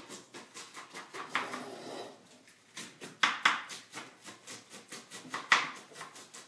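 Kitchen knife slicing through red cabbage on a cutting board: a steady run of quick cuts, about four a second, each a crisp crunch ending in a tap on the board, with a few louder strokes about three seconds in and again about five and a half seconds in.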